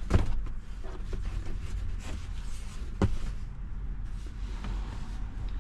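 Low steady vehicle rumble with two sharp knocks, the first right at the start and the second about three seconds in.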